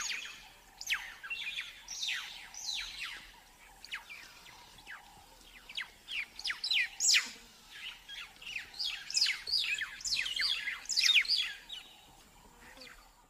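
Weaver birds chirping: many quick, overlapping notes that fall in pitch, busiest in the second half and dying away near the end.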